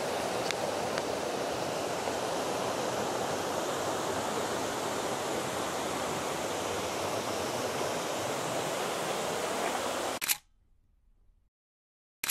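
Steady rush of fast-flowing river water, which cuts off abruptly about ten seconds in. A short, sharp burst of noise follows right at the end.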